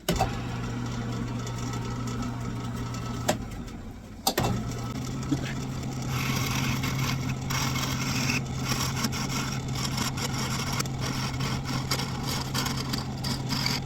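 Wood lathe motor switched on and running with a steady hum; it cuts out briefly about four seconds in and starts again with a slightly higher hum. From about six seconds a turning tool scrapes and cuts a thin 3/8-inch dowel spinning in the lathe, in uneven strokes.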